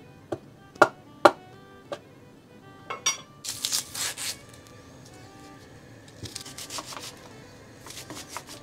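Soft background music with a few sharp knocks in the first two seconds, then rustling and scraping of food being peeled and cut by hand with a kitchen knife, loudest around three to four seconds in.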